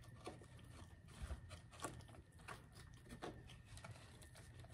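Near silence with faint, irregularly spaced clicks and smacks of someone eating quietly close to the microphone.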